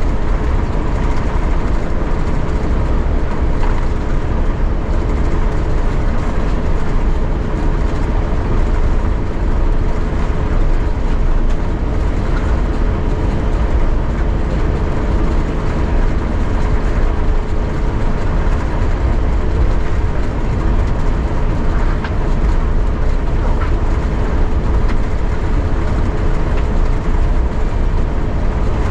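Steady low rumble inside the cabin of an Airbus A350-900 taxiing after landing, with a constant two-note hum running through it.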